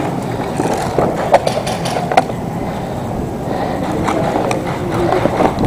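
Scraping and crunching of a player shifting his gear and body on concrete strewn with broken glass and debris, with a few sharp clicks about a second and a half to two seconds in.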